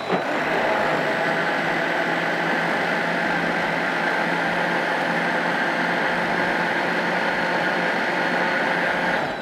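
Countertop electric blender running at full speed for about nine seconds, blending a thin yogurt and gram-flour batter for kadhi. It starts at once and runs down at the end.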